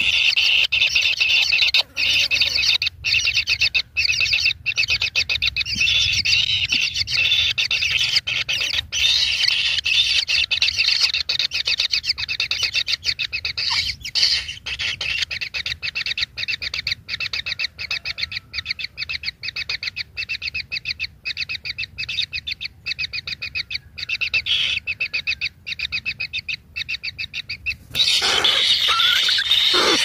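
Kingfisher nestlings begging in their burrow nest, a fast, continuous run of repeated high calls. About two seconds before the end the calling suddenly gets louder as a parent arrives with a grasshopper to feed them.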